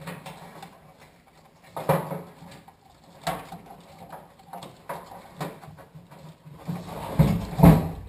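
Irregular knocks and clunks of parts being handled during a fuel tank install, with the loudest two near the end.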